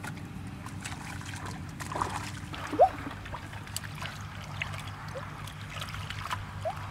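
Hands sloshing and groping in shallow muddy water, with small splashes, drips and plops; the loudest plop comes about three seconds in. A low steady hum runs underneath.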